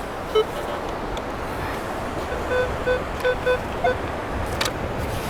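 Metal detector giving a run of short beeps, several in quick succession, as it sounds over a buried target in the sand, against steady wind and surf. A brief burst of noise comes about four and a half seconds in.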